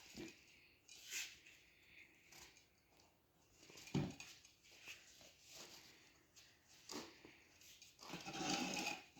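Scattered clicks, knocks and scraping from hand work on a dirt-bike tire being forced onto its rim, with one louder knock about four seconds in and a longer scraping rub near the end.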